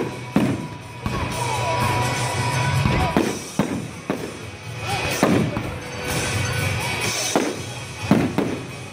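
Aerial firework shells bursting: about seven sharp bangs spread through the seconds, the loudest near the end, with music playing underneath.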